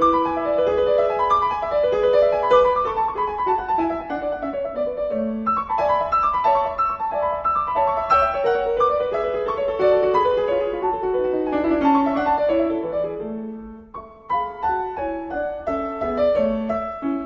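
Background piano music: quick runs of notes, with a brief pause about three-quarters of the way through.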